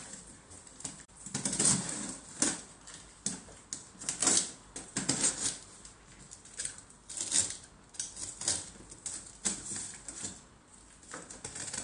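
Utility knife slicing the packing tape along a cardboard carton's seams: a series of short, sharp scraping strokes, irregularly spaced about one or two a second, with the cardboard rustling under the hands.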